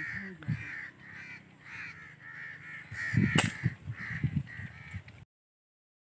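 Birds calling in a quick, regular series of short calls from the tree. About three and a half seconds in, a single sharp crack of an air rifle shot, the loudest sound. Near the end the sound cuts out entirely.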